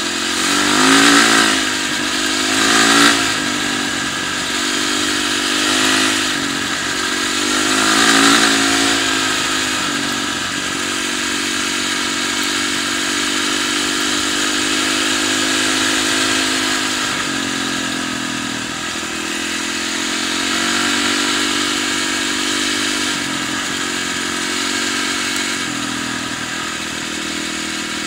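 Yamaha dirt bike engine revving under throttle as it is ridden, rising and falling in pitch about four times in the first ten seconds, then running at a more even speed with brief dips.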